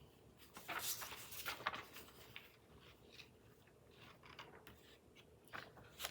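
Faint rustling and light taps of printed page-overlay sheets being handled and shuffled, in a few short scattered strokes, the loudest in the first two seconds.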